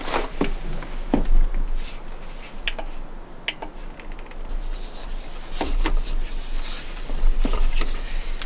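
Irregular knocks, clicks and scrapes at uneven intervals, with a low rumble underneath.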